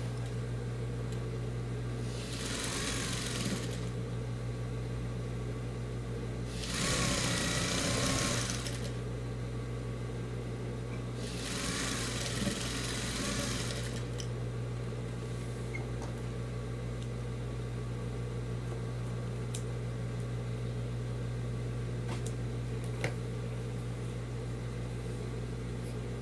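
Sewing machine stitching through layered fabric in three short runs of about two seconds each, over a steady low hum.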